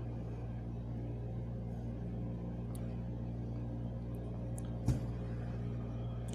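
Steady low hum with a few light clicks and one sharper knock about five seconds in: a knife scoring a whole mackerel and tapping the cutting board.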